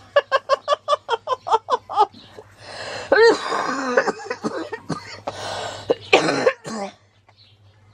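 A person laughing hard: a quick run of ha-ha bursts for about two seconds, then wheezing, breathless laughter with coughs. It stops about seven seconds in.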